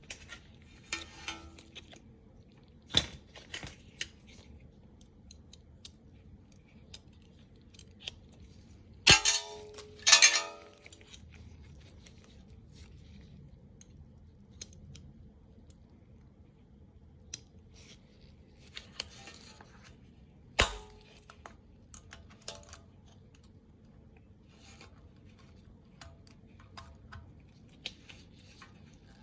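Scattered metal clicks and taps of snap ring pliers working a retaining clip onto a newly pressed-in lower ball joint. The loudest sounds are two ringing metal clinks about nine and ten seconds in, with single sharp knocks near the start and about two-thirds of the way through.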